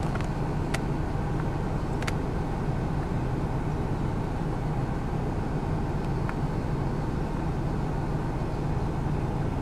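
Steady low hum of a motor vehicle's engine running, with a few faint clicks.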